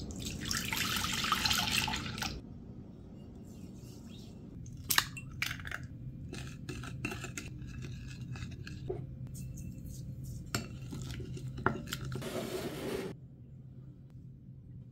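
Warm milk poured from a glass measuring jug into a glass mixing bowl, a steady splashing hiss for about two seconds. Then scattered clinks and taps of small ramekins and a wooden spoon against the glass bowl as ingredients go in and are stirred, with a second short pour near the end, over a low steady hum.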